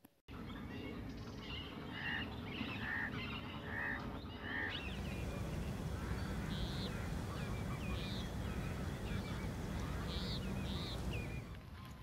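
Geese honking: a series of short calls, higher-pitched ones in the second half, over a steady low background hum.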